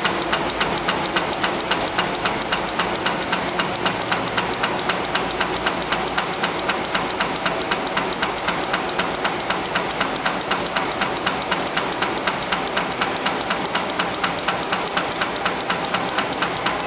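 Reel-to-pack business-forms printing press running: a steady machine noise with a rapid, even clatter of clicks.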